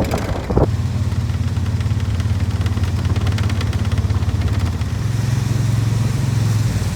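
Golf cart engine running steadily as the cart drives along, a low even hum that grows a little louder about five seconds in.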